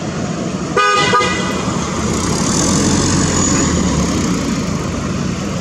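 A short vehicle horn toot about a second in, then the rumble of a motor vehicle passing by.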